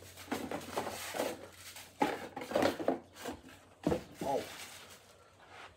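Plastic packaging rustling and crinkling in irregular bursts as it is handled and pulled open, with a couple of sharp clicks about two and four seconds in.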